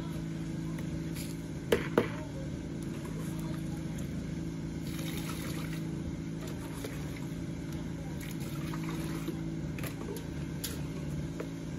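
Liquid splashing and trickling as a plastic bowl scoops from and pours into a metal pot. Two sharp knocks about two seconds in, over a steady low mechanical hum.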